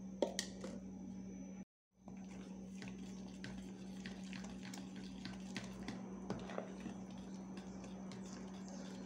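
A metal spoon stirring a wet, mashed jiló batter in a plastic bowl: irregular light clicks and wet mixing sounds over a steady low hum.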